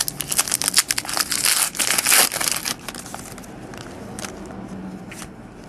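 A 2009 Donruss Gridiron Gear trading card pack wrapper being torn open and crinkled, in dense crackling bursts for about three seconds. After that come lighter, scattered clicks and rustles as the cards are slid out and handled.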